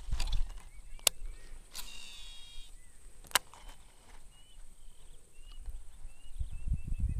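Two sharp clicks from a Shimano Exsence DC baitcasting reel being worked, with a brief high whine about two seconds in. Small birds chirp in short, repeated arched notes, more often in the second half.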